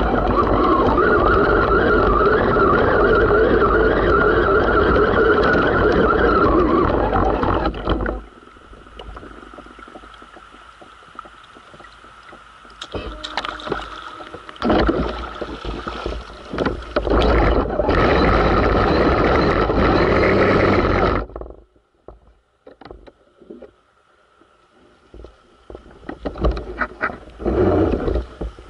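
Onboard sound of an Axial Wraith RC rock crawler's electric motor and drivetrain whining as it drives through creek water, with water splashing against the truck. It is loud and continuous for the first eight seconds, then comes in irregular bursts, and stops about 21 seconds in, leaving only faint clicks and a last short burst near the end.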